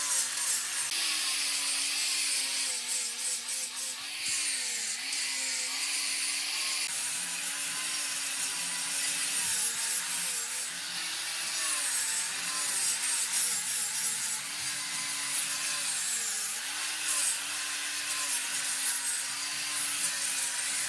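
Angle grinder with an abrasive disc sanding the edge of a solid wood slab tabletop: a steady motor whine over a hiss of abrasion on wood. The whine's pitch sags and recovers several times as the disc is pressed into the wood.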